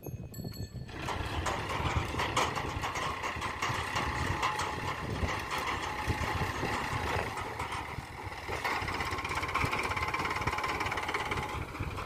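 Diesel engines of a JCB 3DX backhoe loader and a Farmtrac tractor running. The sound comes in loud about a second in and drops away shortly before the end.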